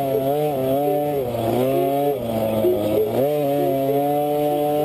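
KTM 50's small two-stroke single-cylinder engine running hard under throttle. Its pitch dips and climbs back about two seconds in as the throttle is rolled off and on, then holds steady.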